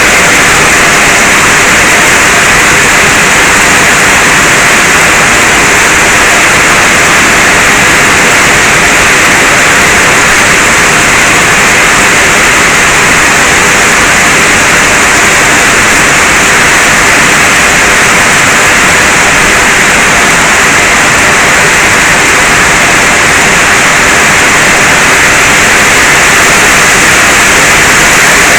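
Rain falling steadily, a loud, even hiss that does not let up.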